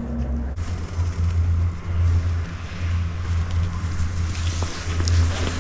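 Steady low rumble with a hiss over it: wind buffeting the camera microphone.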